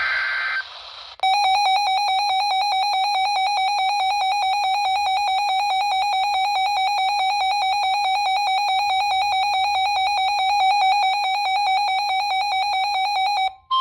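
A weather radio's built-in alert alarm, a loud, rapidly pulsing buzzy electronic beep held for about twelve seconds, set off by the radio decoding a flash flood warning. It follows the tail of a brief screeching SAME digital data burst at the very start.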